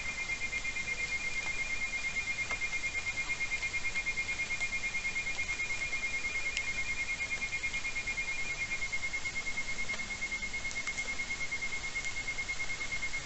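Two insects trilling steadily at slightly different high pitches, each a fast, even pulse. The higher trill stops about nine seconds in and the lower one goes on.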